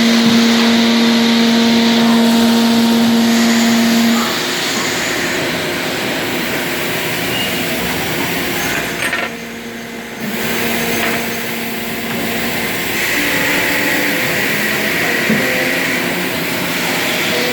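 Machinery running steadily with a strong hum-like tone that stops about four seconds in and returns briefly around ten seconds, then a higher hiss later on.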